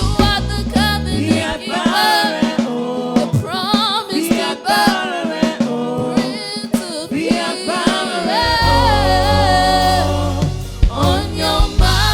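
Gospel song sung by voices with a band behind them, drums hitting through it. About two-thirds of the way through, a deep bass note comes in and holds under the singing.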